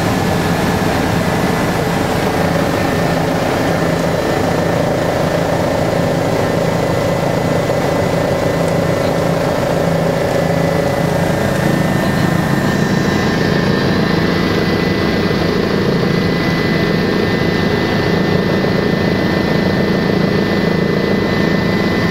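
Helicopter cabin noise: the engine and rotor making a loud, steady drone heard from inside the cabin, with a thin steady whine over it.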